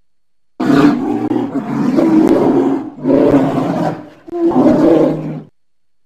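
Polar bear vocalizing: three long, loud rough calls in a row. The first lasts about two seconds, and the next two are shorter.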